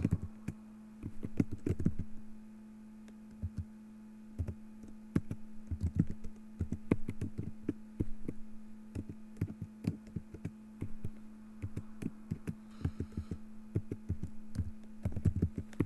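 Computer keyboard typing: irregular runs of keystrokes with short pauses between them, over a steady low hum.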